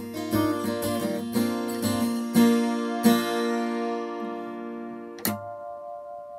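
Yamaha acoustic guitar played alone: quick picked notes, then two strummed chords about two and a half and three seconds in, left to ring and slowly fade. A short sharp hit on the strings comes about five seconds in.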